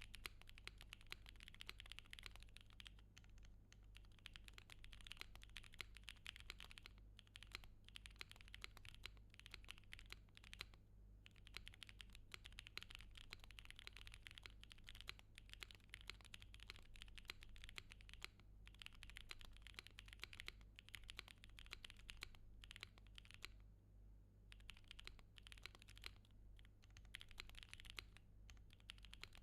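Fast typing on a 60% mechanical keyboard with a gummy O-ring mounted PCB: a dense run of key clacks with short pauses every few seconds, quiet, over a steady low electrical hum.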